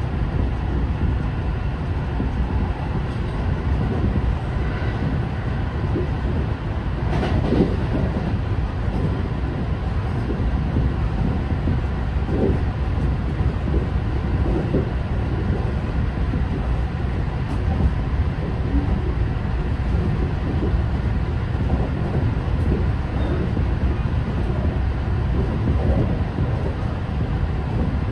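Kintetsu 9020 series electric train running at about 75–80 km/h, heard from inside the front cab: a steady rumble of wheels on rail. A few sharper clacks from the track come about seven seconds in and again around twelve and fifteen seconds.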